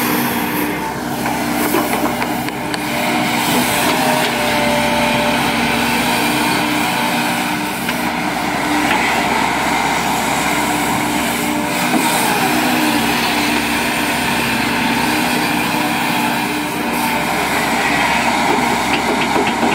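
Volvo EC210D crawler excavator's diesel engine running steadily under working load as the machine digs, swings and dumps soil. Its note carries tones that come and go with the movements of the arm.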